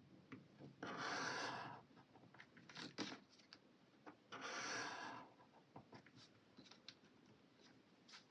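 Square-tipped marker dragged across paper to shade a planner line: two faint stroking passes of about a second each, with a few small ticks and taps between them.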